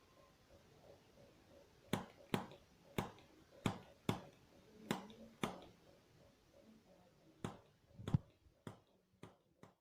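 About a dozen short, sharp clicks at uneven intervals, starting about two seconds in, pausing briefly midway, and growing fainter near the end.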